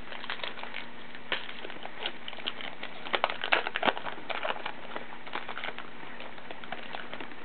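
A baseball-card pack wrapper crinkling as it is torn open, with the cards inside rustling, in a run of short crackles that is busiest in the middle. A faint steady hum sits underneath.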